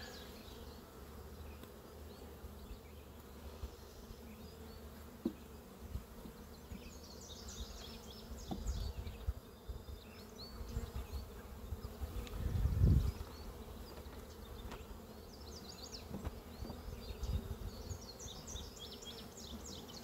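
Honeybees buzzing steadily around an open hive as bee-covered frames are set back into the box. A brief low thump comes a little after halfway, with a few faint knocks and ticks here and there.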